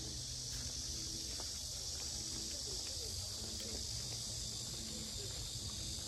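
Cicadas in a steady, very loud chorus: one unbroken high buzz, with a low rumble underneath.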